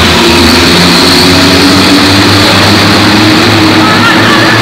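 Car engines accelerating hard in a concrete road tunnel, a loud, continuous engine note that climbs slowly in pitch.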